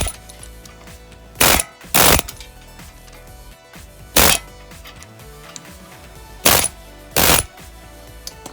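Pneumatic air hammer firing in six short bursts, knocking a torn front lower ball joint loose.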